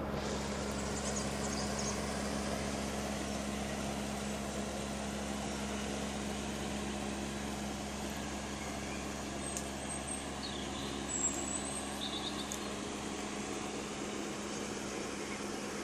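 Eco+ swimming pool heat pump running: a steady hum with a constant low tone over even fan noise.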